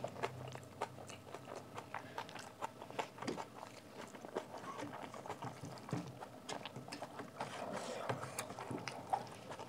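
Close-up chewing of rice and curry, with many small wet mouth clicks and smacks. Fingers squish and mix the rice against a stainless steel plate.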